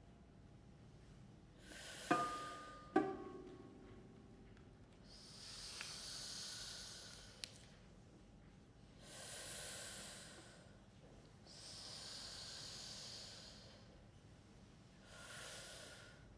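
Two plucked lute notes ringing out about two and three seconds in, then four long breathy, hissing exhalations from the Noh singer, each a second or two long, in a sparse, whispered passage of contemporary music.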